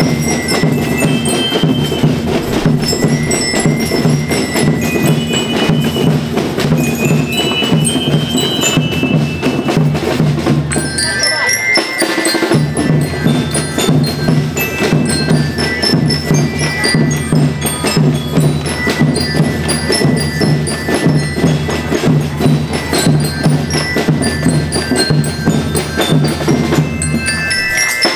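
School rhythm band (banda rítmica) playing: a tune in high, bell-like mallet notes, typical of the bell lyres and glockenspiels these bands use, over a steady drum beat. The drums stop for about a second near the middle while the high notes carry on.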